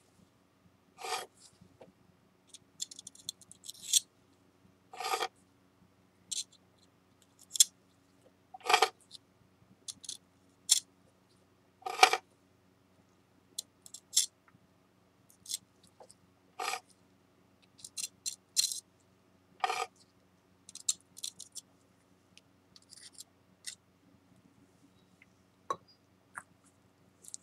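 Spatula scraping along the broken edge of a ceramic cup fragment, spreading shin-urushi and flour paste: short scrapes every few seconds, with light ticks and taps between.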